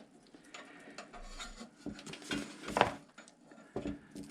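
Small plastic clicks and taps of hands fitting front-panel switch connector plugs onto the motherboard's header pins, with one louder knock a little under three seconds in.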